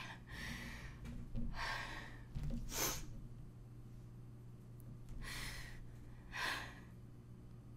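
A woman's emotional breathing while crying: about five audible gasping and sighing breaths, with a sharper intake near three seconds in.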